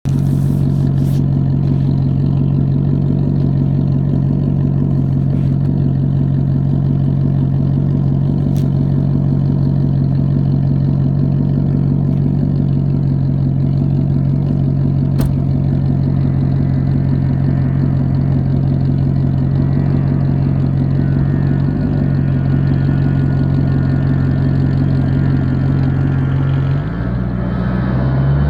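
2007 Maserati Quattroporte's 4.2-litre V8 running steadily through an exhaust with sports cats, an X-pipe and no muffler, then revving up near the end.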